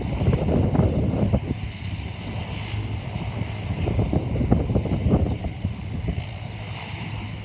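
Aircraft engine noise, a steady low rumble slowly fading away, with gusts of wind buffeting the microphone.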